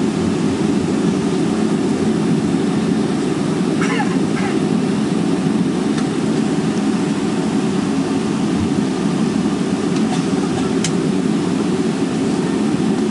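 Steady cabin noise inside a twin-engine Boeing 757-200 taxiing on idle engine power, a constant low drone, with a few faint brief clicks.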